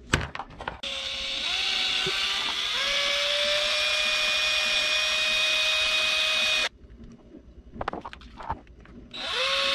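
Power drill boring a hole into a small wooden lure body. The motor whine climbs in pitch over the first couple of seconds, holds steady for a few seconds and stops. A few clicks follow, then a short second burst of drilling near the end.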